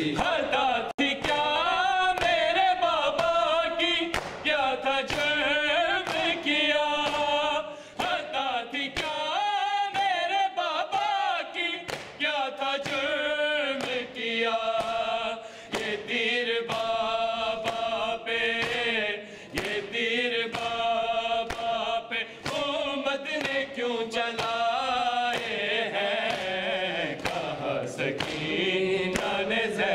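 Men reciting an Urdu noha (Shia lament) together in a chanted melody, unaccompanied, over a steady rhythm of matam: open palms striking chests on the beat.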